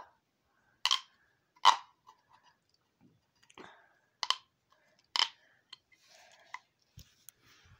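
Plastic pop tube being stretched and squashed in the hands, giving a few sharp pops spaced about a second apart with faint crinkling between.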